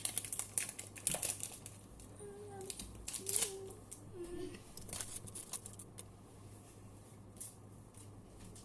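Match Attax football trading cards being handled and flicked through, with crinkling of the pack wrapper: a series of short, sharp rustles and clicks that thin out after about six seconds.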